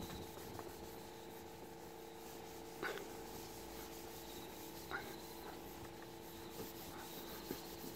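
Faint rubbing of a dry cloth towel buffing a plastic car headlight lens, with a few soft taps, over a steady low hum.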